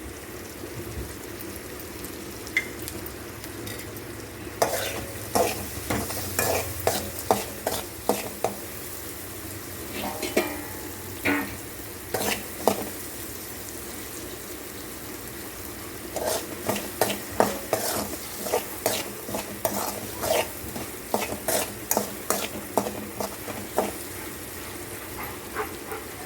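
Chopped onions frying in oil in a pan with a steady quiet sizzle as they soften, while a spatula stirs and knocks against the pan in spells of sharp clicks.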